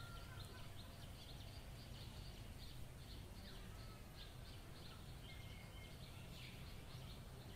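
Faint outdoor ambience: small birds chirping quietly and repeatedly over a low, even background noise.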